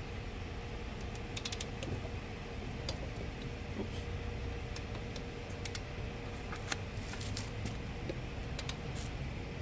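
Scattered small metallic clicks and clinks of a steel socket being worked onto a wheel lug nut and a torque wrench being fitted to it, over a steady low hum.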